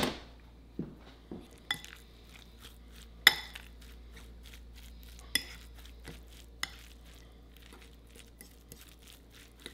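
A metal fork mixing and mashing guacamole in a bowl, clinking and scraping against the bowl at irregular moments. The loudest clinks come right at the start and about three seconds in.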